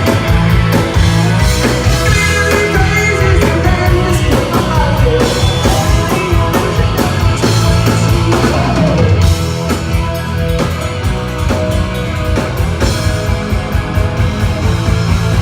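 Rock band playing loudly, with drums and regular cymbal hits over bass and electric guitar; the music gets a little quieter about nine seconds in.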